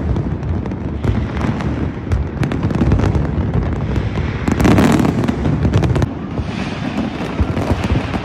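A fireworks display going off in a dense, continuous barrage of low booms and sharp crackles, heaviest about halfway through.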